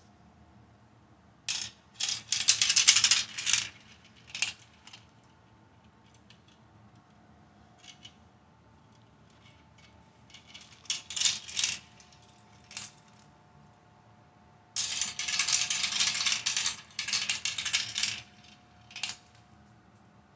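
Marbles rattling and clicking down a plastic 3D marble run track, in three main runs of dense clatter with a few single clicks between.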